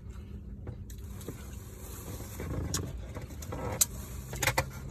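Steady low hum inside a car's cabin, with a high hiss that comes in about a second in and a few sharp clicks.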